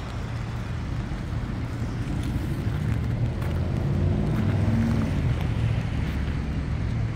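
Road traffic on a city street: a steady low rumble of passing cars, getting a little louder about four seconds in.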